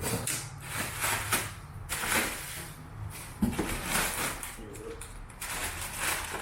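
Packaging and a boxed car part being handled: a run of short rustling, scraping swishes, with a sharp knock about three and a half seconds in.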